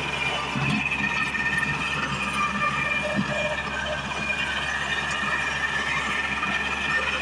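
Small Kubota compact tractor's diesel engine running steadily under load, driving a rear PTO rotary tiller through the soil, with a steady high whine over the engine.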